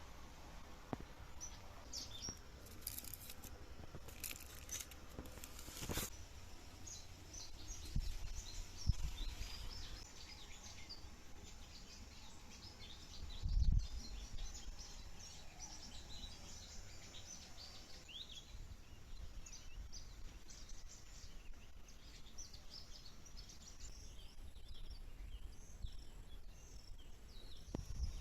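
Birds chirping: many short, high calls scattered throughout, over a faint low rumble. There are a few dull low thumps, the loudest about fourteen seconds in.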